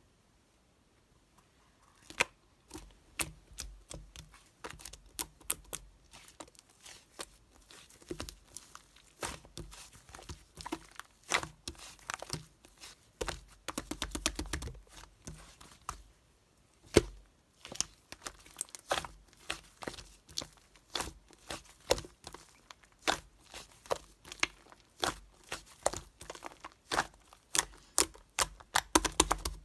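Clay slime being pressed and worked by hand, making dense, irregular crackling pops and clicks that start about two seconds in.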